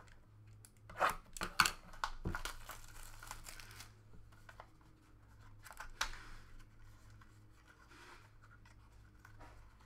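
Sealed trading card box being torn open: plastic wrap and packaging ripping and crinkling, with a few sharp rips in the first two and a half seconds and another near six seconds in, then quieter handling.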